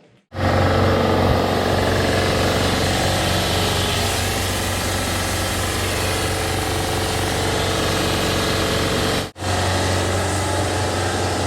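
Air compressor running steadily with a heavy motor hum, pressurising an air tank. It cuts out for an instant about nine seconds in, then carries on.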